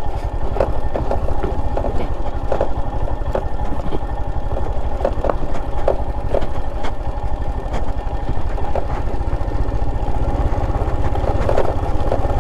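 Motorcycle engine running at low, steady revs while the bike rolls down a steep, rough dirt track, with scattered knocks and rattles as it jolts over stones.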